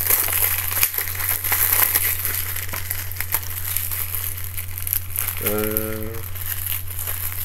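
Crinkling and tearing of thin plastic shrink-wrap being peeled off a Blu-ray case by hand, busiest in the first couple of seconds. A short hummed note sounds about five and a half seconds in.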